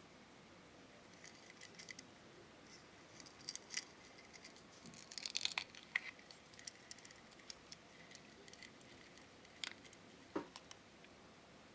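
Small plastic clicks and ticks from handling a purple plastic Tamagotchi 4U-shaped candy case, with a quick run of sharper snaps about halfway as its clear front cover comes open, and a few more clicks near the end.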